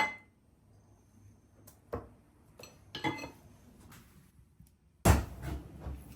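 Kitchenware being handled: a sharp knock at the start, single knocks and clinks about two and three seconds in, and a longer clatter starting about five seconds in.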